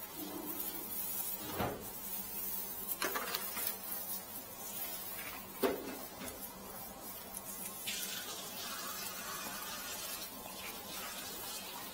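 Rice straw rustling and crackling as it is twisted and woven by hand into a waraji sandal, with three short sharp clicks.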